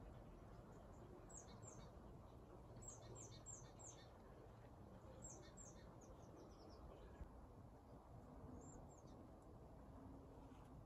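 Faint small-songbird chirps: several quick runs of two to six high-pitched notes, each note falling in pitch, over a quiet outdoor hiss.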